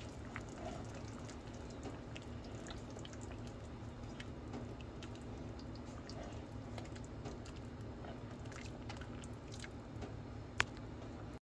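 Faint scattered small clicks and taps over a steady low hum, with one sharper click near the end.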